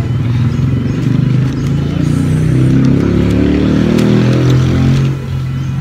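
A motor vehicle's engine running past close by, a low drone that builds to its loudest in the middle and eases off near the end.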